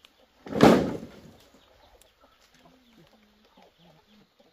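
Bamboo poles dropped onto a pile of cut bamboo: one loud crash about half a second in that dies away within a second.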